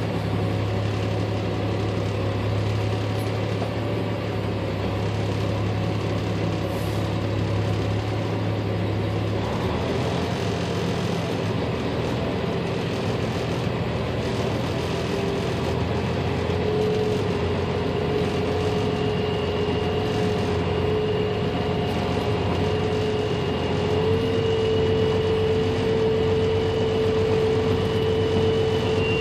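Truck engine running while the truck reverses slowly on a gravel road, heard from inside the cab. The engine note changes about a third of the way in, and a steady whine comes in about halfway and rises a little in pitch.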